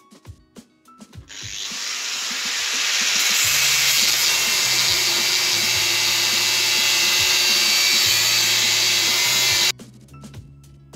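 Angle grinder with a cut-off disc cutting through a steel chainsaw bar: a loud grinding hiss that builds over about two seconds from about a second in, holds steady, then stops abruptly near the end.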